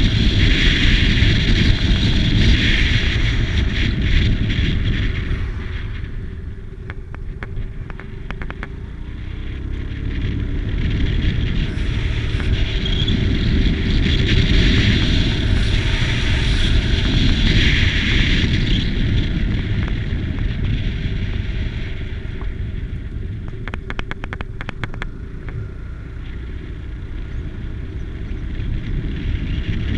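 Wind rushing over the microphone of a moving SYM GTS 250 scooter, with its single-cylinder engine and tyre noise underneath. The noise eases twice, about a quarter of the way in and again near the end.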